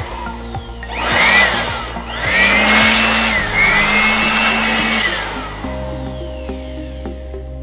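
Nankai handheld electric blower fired in short blasts into an open audio power amplifier to blow out dust, its motor whining up and falling away three times with a rush of air. It stops about two-thirds of the way in, leaving quiet background music.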